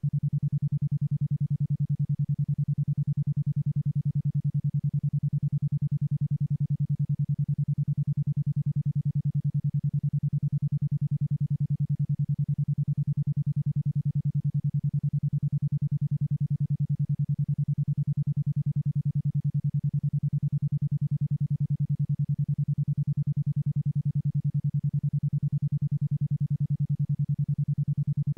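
A 10.2 Hz isochronic tone in the alpha range: a single steady low hum that pulses on and off about ten times a second, evenly and without change.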